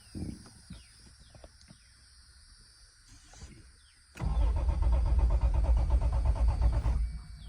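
A 1989 Toyota Supra Turbo's 7M-GTE inline-six is cranked by the starter for about three seconds, starting about four seconds in, with a steady rhythmic churn that stops abruptly without the engine catching. It cranks but won't fire, which the owner puts down to no spark.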